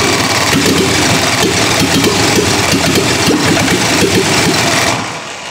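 Petrol four-cylinder engine converted to diesel fuel injection, cranked on its starter and firing unevenly on sprayed starting fluid without running on its own, then stopping about five seconds in.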